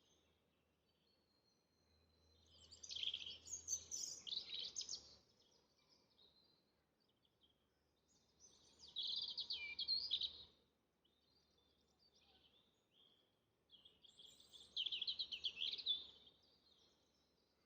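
A songbird singing three quick, trilling song phrases, each about two seconds long, a few seconds apart.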